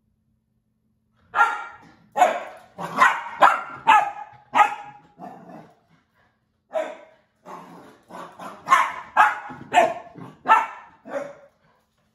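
Bernedoodle puppy barking in two quick runs: about seven barks, a pause of about a second, then about eight more.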